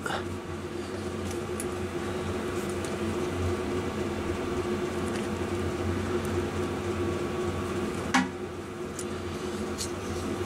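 Steady electrical hum, with a few faint ticks and one sharp click about eight seconds in, likely wire cutters snipping off a sharp strand of ignition wire.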